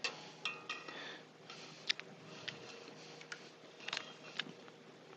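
A metal spoon clinking and scraping lightly in a stainless steel saucepan of cooking quinoa, with a few scattered sharp clicks, as the quinoa is checked for doneness.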